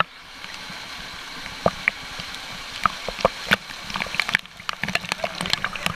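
A small waterfall rushing into a pool, heard from the water surface, with water splashing and dripping against a waterproof action camera's housing in many sharp irregular plips and sloshes. The rush dulls briefly a little past four seconds in.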